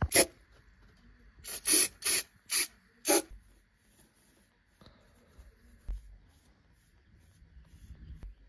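An aerosol spray can hissing in six short bursts. These are followed by quick, faint strokes of a small brush on the steel chassis rail, about two a second.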